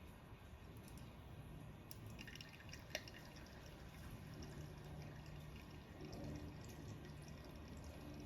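Faint dripping of liquid, with one sharp click about three seconds in, over a low steady hum.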